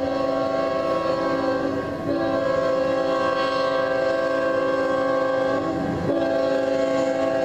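Diesel freight locomotive's air horn blowing long blasts with short breaks, a steady chord of several tones: one blast ends about two seconds in, the next lasts about four seconds, and a third begins near the end.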